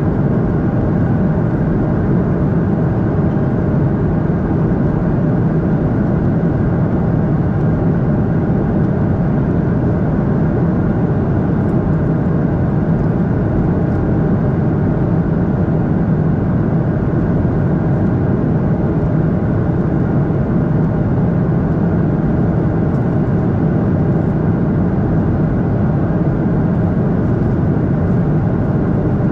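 Steady cabin noise inside a Boeing 737-800 in flight, from a window seat beside the wing: the CFM56-7B jet engines and the air rushing past the fuselage make an even, unchanging rush, heaviest in the low range.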